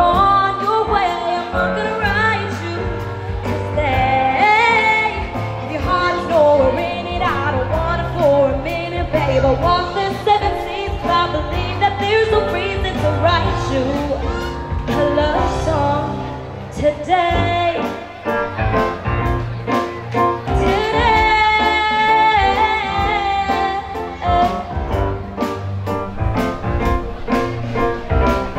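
Live pop band with a female lead singer: sung vocal lines over a drum kit keeping a steady beat and keyboards, amplified through stage speakers.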